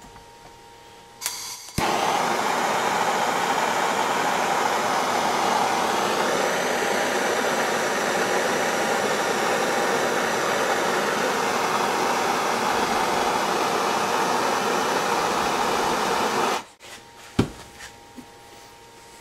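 Handheld gas torch burning with a steady, loud hiss. It starts suddenly just after a click a little under two seconds in, runs for about fifteen seconds and is shut off abruptly. A single sharp click follows shortly after.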